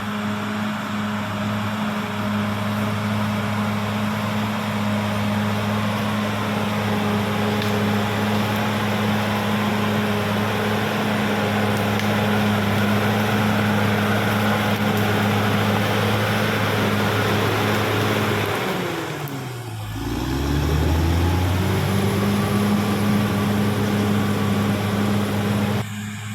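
Caterpillar D6R XL bulldozer's diesel engine running steadily. About 19 seconds in, its pitch falls sharply and climbs back within a second or two.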